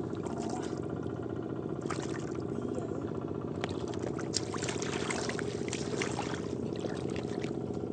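A small engine running steadily, with water splashing and trickling over it in short irregular bursts.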